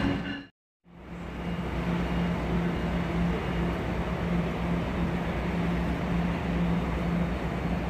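A brief dropout to silence under a second in, then a steady drone with a wavering low hum and rumble from a train's diesel locomotive running.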